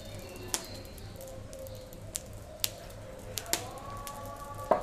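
Kitchen knife cutting through a thin cooked roti on a wooden chopping board, making a few sharp clicks and knocks. The loudest knock comes near the end.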